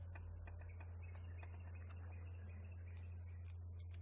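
Faint small metal clicks and taps of hydraulic control-valve parts being handled and fitted together by hand, over a steady low hum and a steady high-pitched whine.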